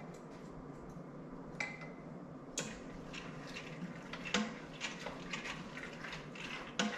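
A spatula scraping and knocking against a measuring cup as a thick molasses-and-maple-syrup liquid is scraped out into a stainless steel pressure cooker pot: scattered scrapes and sharp clinks that start about a second and a half in, the loudest knocks near the middle and end.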